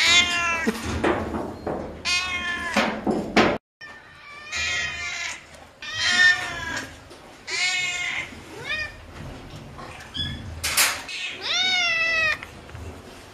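Domestic cats meowing over and over, about eight drawn-out meows, several rising and then falling in pitch. The sound cuts out abruptly for a moment about three and a half seconds in, then the meowing goes on from another cat.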